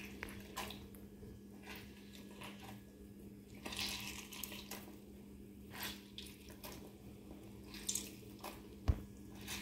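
Lemon juice squeezed by hand, trickling and dripping into a ceramic cup in irregular spatters, over a faint steady hum. A single sharp knock near the end.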